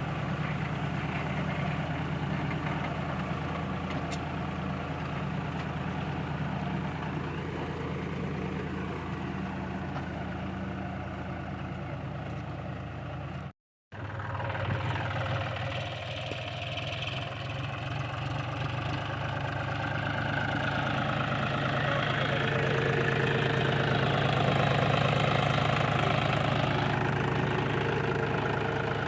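Tractor diesel engine running steadily under load. It cuts out for an instant about halfway through, then comes back and grows somewhat louder near the end.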